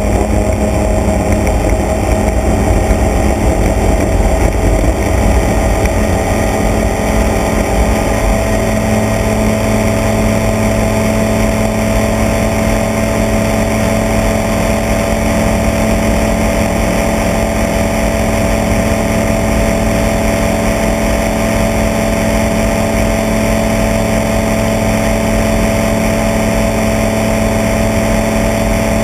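Small propeller aircraft's engine running at takeoff power through the takeoff run and climb-out, a steady engine drone over a rough low rumble.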